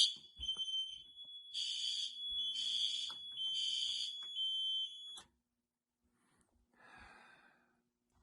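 Fire alarm horns sounding in repeated blasts, with a steady high-pitched tone underneath, during an alarm test of the system. A loud blast ends right at the start, three more blasts follow, then everything cuts off abruptly about five seconds in as the alarm is silenced.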